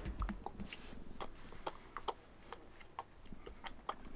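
Light, quick clicks or taps, about two to three a second, fairly even in spacing.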